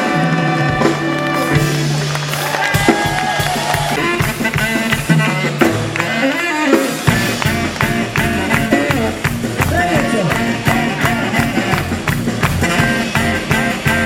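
Live rock and roll band playing without vocals: bass notes and drum strokes, with a stepping bass line and a steadier beat from about halfway through.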